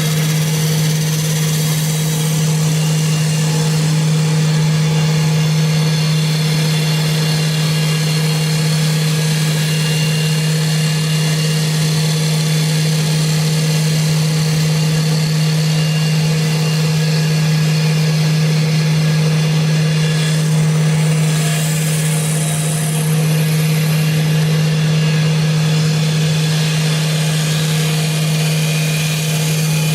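CNC wood lathe running, turning a wooden workpiece: a steady, loud machine hum with a constant high hiss, which changes briefly about two-thirds of the way through.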